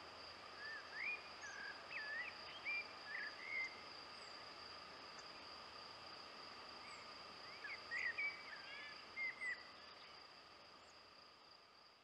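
Faint outdoor ambience: a steady high insect trill, with a songbird singing two short bursts of warbled, gliding phrases, the second about eight seconds in. It all fades out near the end.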